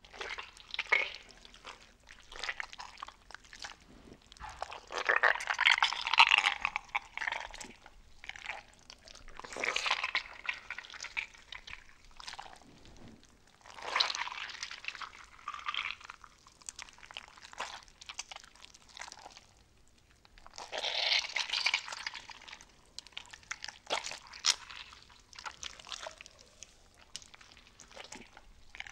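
Slime being squished, giving wet crackling and popping in swells of a couple of seconds each, roughly every four seconds, with small clicks in between.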